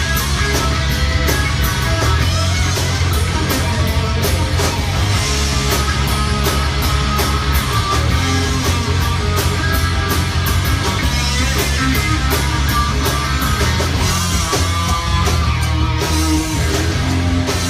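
Rock band playing live: electric guitar over bass and a steady drum beat with cymbal hits, loud and continuous.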